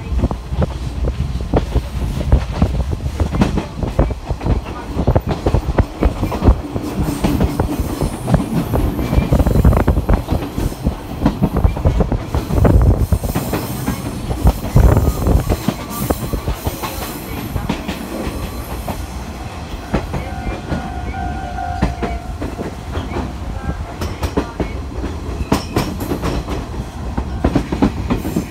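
JNR 185 series electric train running, a steady rumble from the wheels on the rails broken by frequent short knocks as the wheels pass over rail joints. A faint brief squeal comes about two-thirds of the way in.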